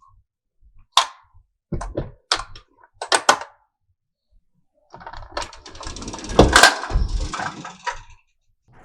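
Marbles clicking and clattering on a wooden marble run: a few separate clicks, a pause, then a busier rattle of knocks with one loud click and a dull thump near the end.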